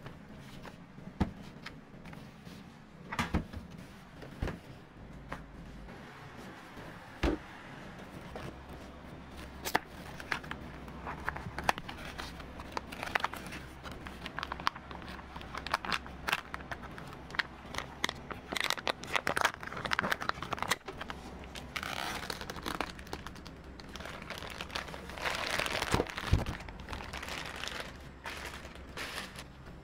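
Cardboard cream cheese boxes and their plastic-wrapped packs being handled and opened: crinkling and tearing with scattered knocks and clicks, busiest in the middle and again near the end, over a low steady hum.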